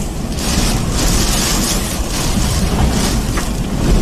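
Hurricane-force wind blowing in gusts, buffeting the microphone with a heavy low rumble and a hiss that swells and fades.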